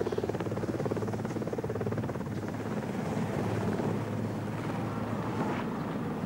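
Helicopter rotor and engine noise: a steady, fast beating over a low hum.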